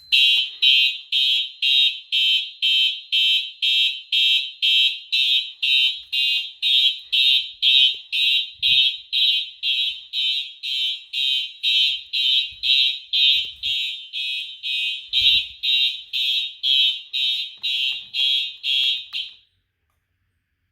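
Fire alarm horns sounding in march time, an even pulsing of about two blasts a second, as the alarm system is in alarm. The pulsing cuts off suddenly near the end when the panel is silenced.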